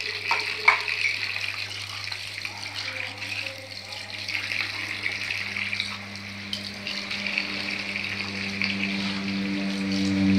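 Cessna Caravan single-engine turboprop on its takeoff run: the propeller drone comes in about halfway through and grows steadily louder at a steady pitch, over a continuous hiss.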